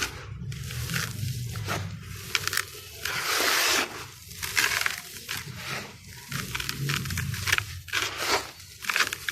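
Dry charcoal sand-cement slabs crunching and crumbling, with irregular crackles and gritty scraping, and one longer hissing rush about three seconds in.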